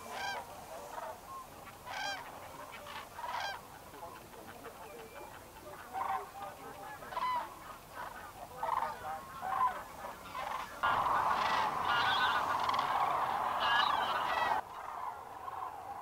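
A flock of common cranes and geese calling: many separate honking and trumpeting calls, overlapping. About eleven seconds in, a denser, louder chorus starts suddenly and cuts off abruptly shortly before the end.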